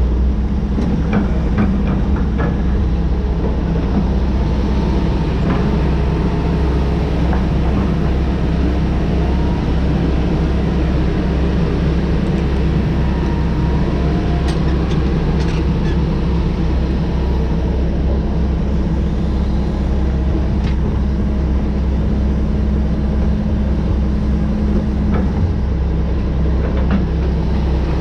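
Mack CH612 dump truck's E7 inline-six turbo diesel running at a steady speed, a loud even drone that holds without revving up or down.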